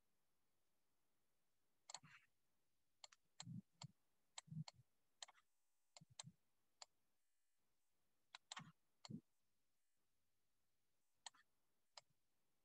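Faint, irregular clicks and taps of a stylus pen on a tablet screen while handwriting numbers, about fifteen in small clusters, some with a dull thump.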